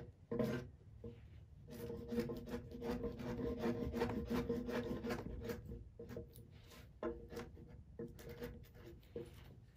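Hand chisel, an old timber-framing slick, paring a pine beam: many short scraping strokes in quick succession as chips come off the wood.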